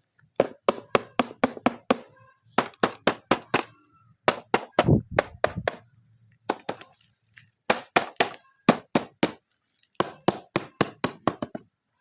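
Hard objects knocking or clacking in quick runs of several sharp hits, about three to five a second, with short pauses between the runs.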